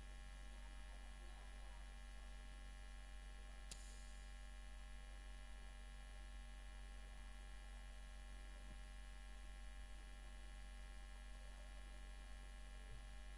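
Quiet, steady electrical mains hum with a faint buzz of steady tones above it, and one faint click about four seconds in.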